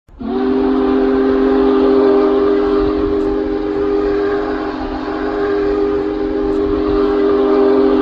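Multi-chime train horn used as an ice hockey goal horn, sounding one long chord to signal a goal. It comes in with a short upward slide and then holds steady.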